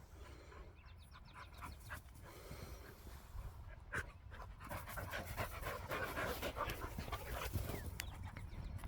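Dog panting, getting louder from about halfway in, after running during play.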